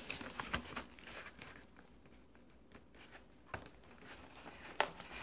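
A hand rummaging through molded pulp packing inserts in a cardboard box: faint rustling and scraping with a few light clicks and knocks. The sharpest knocks come about three and a half and almost five seconds in.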